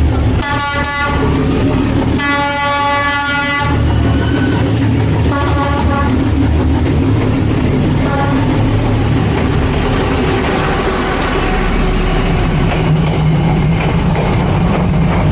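A train passing at close range with a loud steady rumble, its horn sounding a short blast and then a longer one about two seconds in, followed by a couple of fainter toots.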